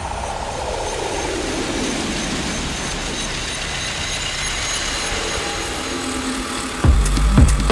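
Electronic soundtrack of a projection-mapping show: a rumbling, noisy sound-effect passage with a tone sliding down over about three seconds. Near the end, heavy bass and a drum beat cut in.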